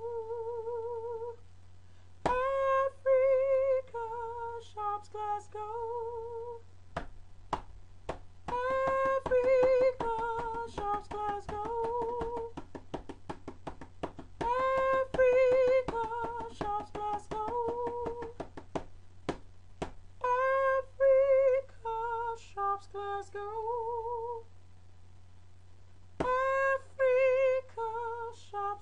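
A woman singing with heavy vibrato, the same short melodic phrase repeated about every six seconds with brief gaps between, over a steady low hum and runs of quick clicks.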